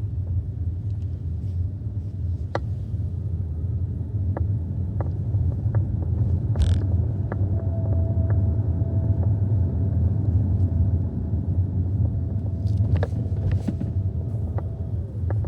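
Steady low road rumble inside a 2021 Hyundai Ioniq 5 while driving, with a thin high-pitched whine that comes in about six seconds in, holds steady, and drops away near the end; the owner does not know its cause. Scattered light ticks from the cabin.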